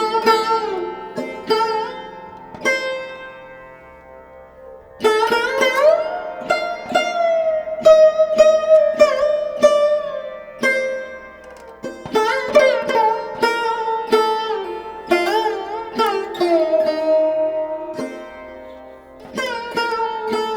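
Background music: a plucked string instrument playing a melody of ringing, fading notes, several bending in pitch, with a pause in the phrase a few seconds in.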